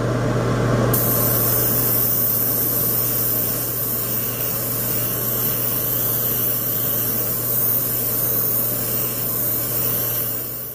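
Airbrush spraying base-coat paint: a steady hiss that starts suddenly about a second in and stops near the end, over a steady low hum.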